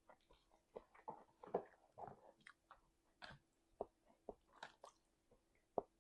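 A person chewing food, with irregular wet mouth smacks and clicks, a few to several a second, and a louder wet patch of chewing about one and a half to two and a half seconds in.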